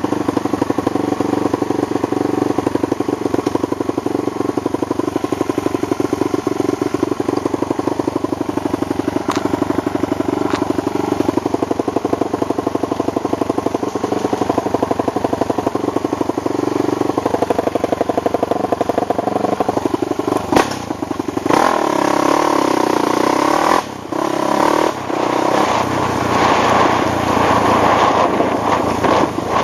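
ATV engine running steadily under way. About two-thirds of the way through the sound cuts out briefly, and a rougher, rushing noise with wind buffeting on the microphone takes over.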